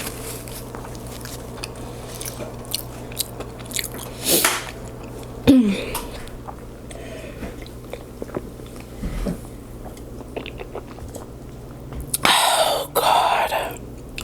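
A person chewing and smacking a mouthful of food, with many small wet clicks of the lips and tongue. A louder rushing noise in two parts comes near the end.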